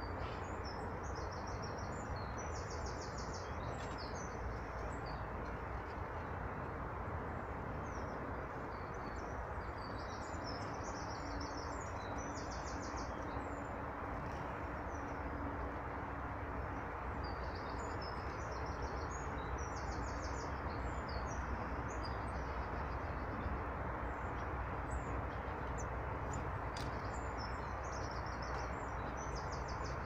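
Small songbirds singing short trilled phrases that recur every several seconds, with scattered single chirps between, over a steady low outdoor rumble.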